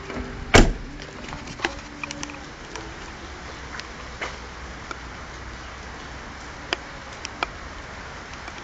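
Rain falling: a steady hiss with scattered single drops ticking sharply on hard surfaces. A loud knock sounds about half a second in.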